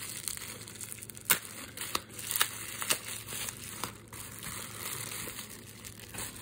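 Bubble wrap crinkling and rustling as it is handled and unwrapped, with a few sharp snaps along the way.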